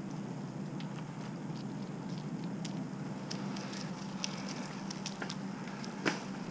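Bicycle tyres rolling over a paved trail strewn with fallen leaves: a steady low rumble with scattered small crackles and ticks, and one sharper click about six seconds in.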